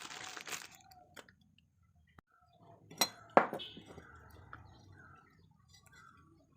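A brief scrape, then two sharp metallic clinks about half a second apart, with faint tinkling after: metal tools or parts being handled and set down.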